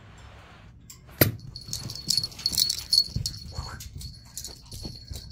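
A chihuahua at play on carpet: the metal tag on its harness jingling and its paws scuffling, with a sharp knock about a second in and a run of small clicks and thuds after it.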